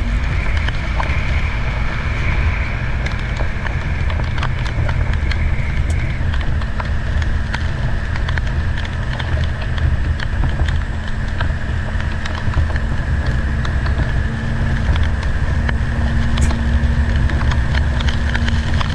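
Semi truck driving at about 30 mph on a wet road, heard from inside the cab: a steady diesel engine drone with tyre hiss, and scattered light ticks of rain on the cab.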